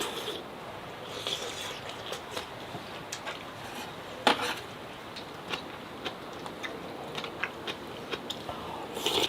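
Metal utensil clinking and scraping against a camp pot or dish, in scattered small clicks with one louder knock about four seconds in.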